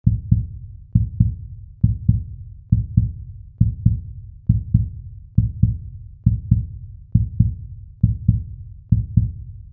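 Heartbeat sound effect: deep, paired thumps (lub-dub) repeating steadily, a little faster than once a second.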